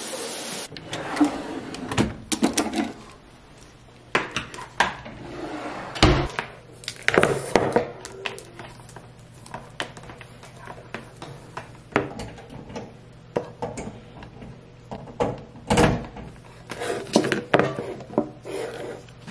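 Household handling noises: clothes dropping onto a floor, then a curling iron being handled and set down on a countertop. Scattered knocks, clicks and rustles come at irregular moments over a faint steady hum.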